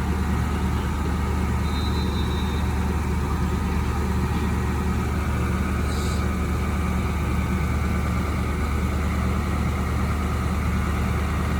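Crane's engine running steadily with a low, even hum.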